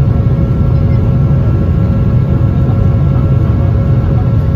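Jet airliner cabin noise in flight, heard from a window seat over the wing: a loud, steady engine rumble with a few faint, steady whining tones above it.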